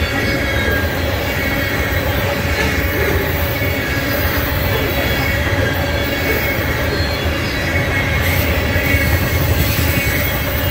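Freight train tank cars rolling past on steel rails: a steady rumble of wheels on track, with a thin, steady squeal from the wheels.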